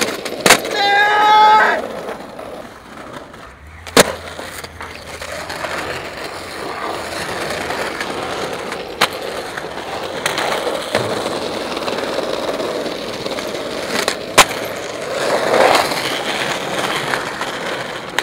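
Skateboard wheels rolling over stone paving, with sharp single clacks of the board striking the ground about four, nine and fourteen seconds in. Near the start there is a loud, brief, wavering high-pitched sound.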